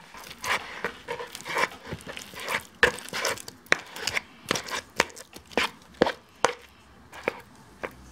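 A silicone spatula mashing a peeled banana into egg white in a plastic bowl, with short squashing and scraping strokes against the bowl about twice a second.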